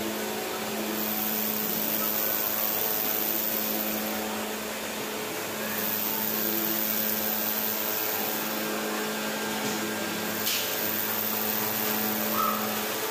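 Glass-processing machinery running: a continuous whirring noise over a low steady hum. A single sharp click comes about ten seconds in.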